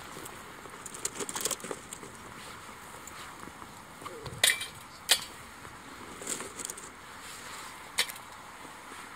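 Pine cones burning in a small metal wood stove: sharp cracks and clicks over a faint steady hiss, with the loudest cracks about four and a half and five seconds in and another near eight seconds.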